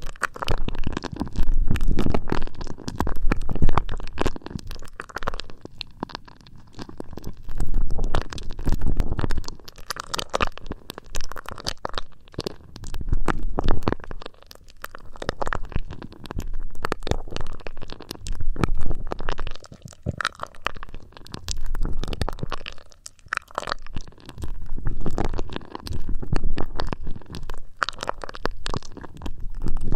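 Fingers rubbing and tapping on the ears of a binaural ASMR microphone, picked up very close: dense crackly scratching that swells and fades every second or two.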